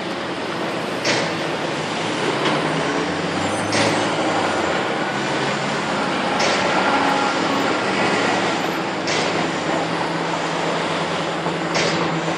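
A low, steady, droning hum under a rumbling wash of noise. A short burst of hiss cuts through about every two and a half seconds.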